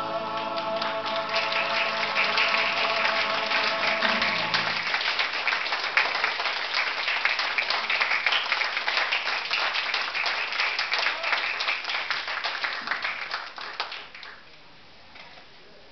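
Small audience clapping. It builds about a second in over the last held chord of recorded music, which stops about five seconds in, then fades out near the end.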